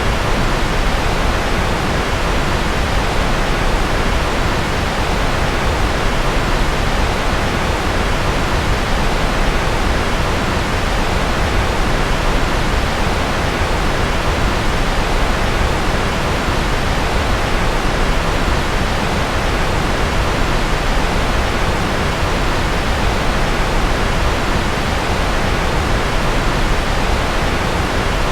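Steady white-noise track sold as rocket noise: a constant, even rush that is strongest low down and thins out toward the top, with no changes or separate events.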